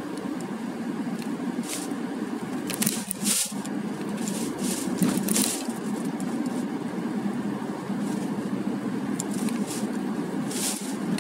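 Steady engine and road noise inside a moving car, picked up by a phone dashcam. Several short hissy bursts break in on top of it, most of them in the first half.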